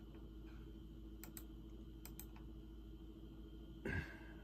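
Faint computer mouse clicks, a few quick pairs, over a low steady hum from the laptop and room. A brief, louder low thump comes near the end.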